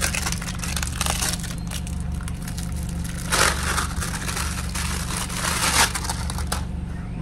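Clear plastic bag crinkling and rustling as a coiled air hose extension is unwrapped from it, in several bursts with the loudest a little past the middle.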